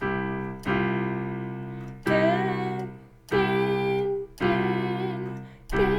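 Piano chords, a C major chord with an added F (C, E, F, G), struck six times in a row, each ringing and fading before the next.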